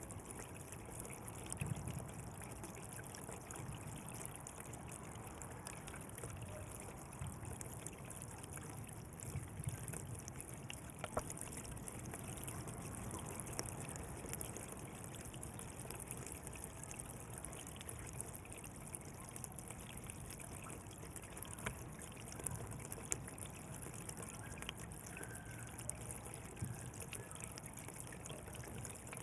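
Water flowing and trickling steadily along a channel, with small splashes flickering through the rush.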